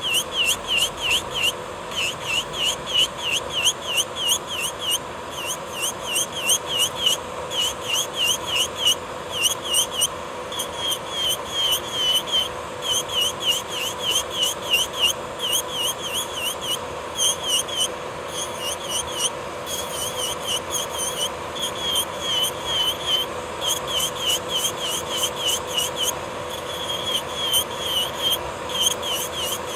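Electric nail drill filing down thick gel nail coating: a steady motor hum under fast, rhythmic squeaky rasping strokes as the bit is swept back and forth over the nail.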